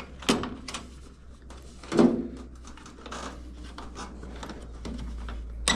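Parts of a GE electric dryer's drum bearing assembly being pushed down into the bottom bearing housing by hand: scraping and knocks, with a loud knock about two seconds in and a sharp click near the end as a part seats.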